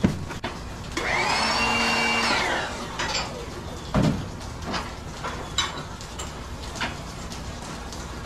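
A power tool's motor spins up about a second in, runs steadily for about a second and a half, and winds down, between scattered sharp knocks; the loudest knocks come at the start and about four seconds in.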